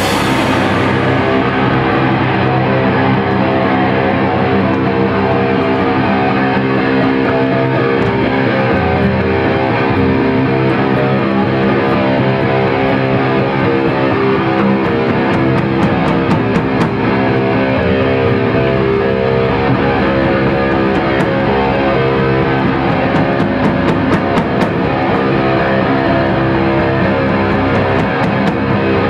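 A crust punk band playing live: loud, distorted electric guitar chords held and ringing over drums, with no vocals in this stretch.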